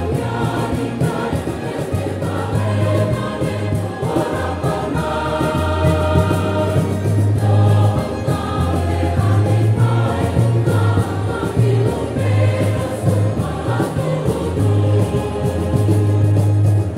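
Church choir singing a hymn in many voices, with sustained low bass notes beneath that change every second or two.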